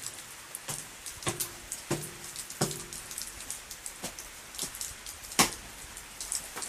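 Scattered, irregular light taps and clicks over a steady hiss, with one sharper, louder knock about five and a half seconds in.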